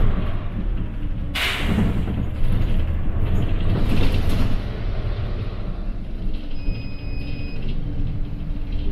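City bus engine running with a steady low rumble, cut by a sharp burst of air hiss from the air brakes about a second and a half in and a weaker hiss around four seconds. A short electronic tone sounds for about a second near seven seconds.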